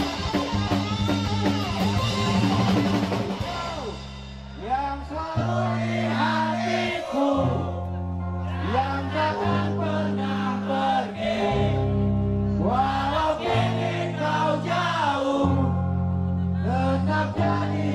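Punk rock band playing live, with drums, bass and guitar. About four seconds in it breaks down to long held bass and guitar chords under loud singing.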